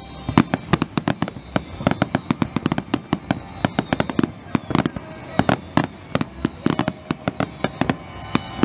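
Fireworks display: fans of shots fired from low positions, heard as a dense, irregular run of sharp bangs and pops, several a second.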